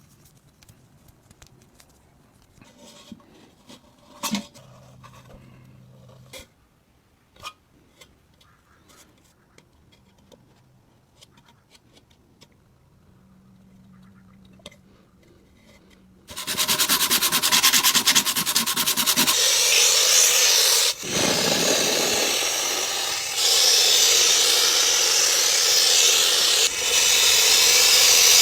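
A few light taps and clicks of handling, then, about halfway through, loud steady abrasive sanding or grinding starts suddenly. It breaks off briefly a few times before carrying on.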